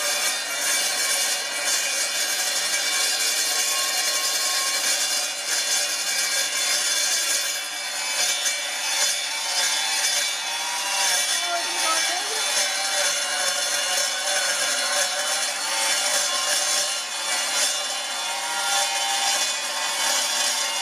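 Miter saw with its universal motor run on DC through a speed controller, its blade cutting through steel: a continuous harsh grinding with squealing tones that waver in pitch from about a third of the way in. The blade is pressed hard into the cut while the motor struggles under the load.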